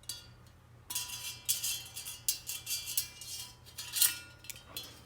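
Metal headlight assembly parts clinking and rattling against metal hangers as they are hung up, a quick run of light clinks from about a second in until about four seconds in.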